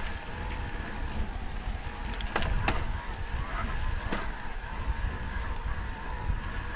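Wind rumbling steadily on the microphone while riding a trail, with a few sharp clicks about two seconds in and one more about four seconds in.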